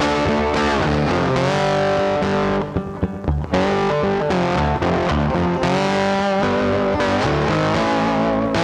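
Background music led by guitar, with sustained bending notes and a brief drop in level about three seconds in.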